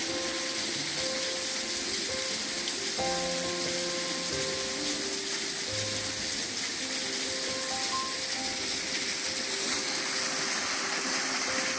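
Soft instrumental background music of slow, sustained notes over a steady hiss.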